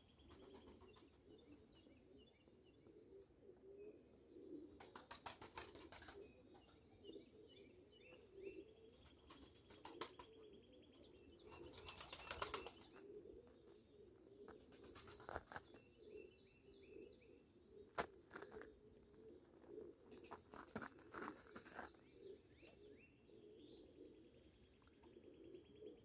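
A woodpecker hammering on a tree trunk in short bursts of rapid taps, about five bursts several seconds apart, with one single loud knock in between. Small birds chirp faintly in the background.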